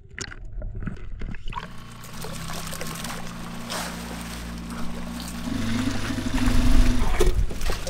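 A motor running steadily; its note shifts and grows louder about five and a half seconds in.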